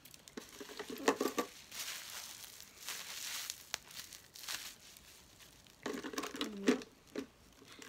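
Crinkling and rustling as small fidget toys are handled in the hands. It is densest and loudest for about two seconds near the middle, with a few sharp clicks.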